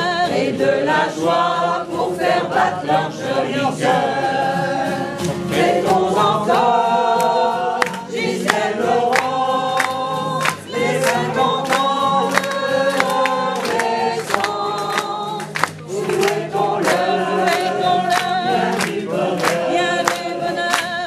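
A small group of amateur voices singing a song together, mostly in unison. A steady beat of sharp taps runs under the singing through its second half.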